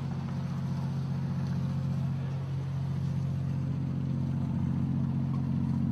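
Boat engine running under way: a steady, low drone with no change in pitch.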